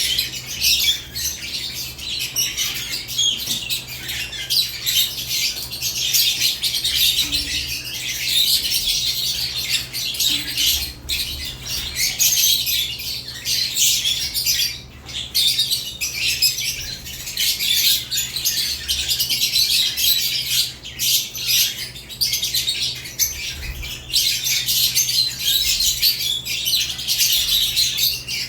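Several caged lovebirds chirping in a constant, dense, high-pitched chatter, with no real pause.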